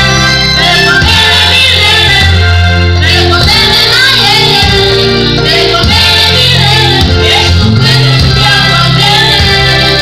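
A vocal group singing together over amplified music with a strong bass line that moves from note to note.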